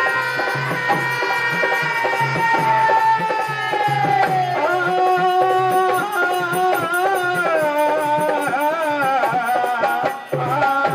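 Devi Jas devotional folk song: men singing to a barrel-shaped hand drum keeping an even beat. A long held note falls slowly for the first few seconds, then the melody turns more ornamented.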